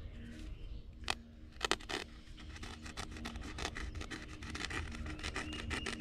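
Pocket knife blade sawing through the synthetic fabric seat of a folding stool: a rapid run of small scratchy rasps and ticks as the blade cuts the weave, with a few sharper clicks a second or two in.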